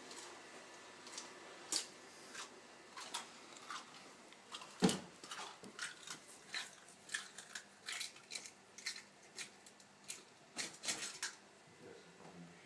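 A large lizard biting down on a whole egg held in its jaws, the eggshell cracking and crunching in a string of sharp, irregular cracks, about one or two a second, the loudest about five seconds in.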